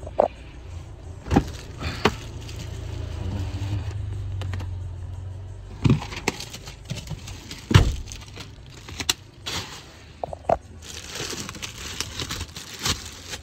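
Protective plastic covers being pulled off a new car's interior trim by hand: plastic rustling with scattered sharp clicks and knocks of hands and fittings against the trim. A low steady hum runs underneath and fades out about four seconds in.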